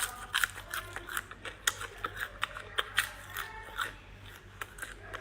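Close-up chewing of crunchy fried insects: quick, irregular crackling crunches, several a second.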